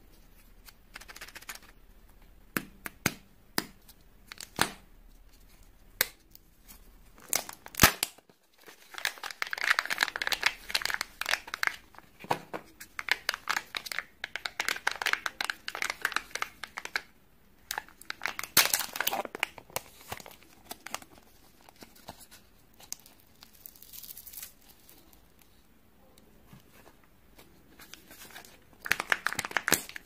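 Foil wrappers of Kinder Joy eggs being torn open and crinkled by hand: irregular crisp rustling broken by sharp clicks. The rustling is busiest from about a third of the way in to past the middle, with another burst near the end.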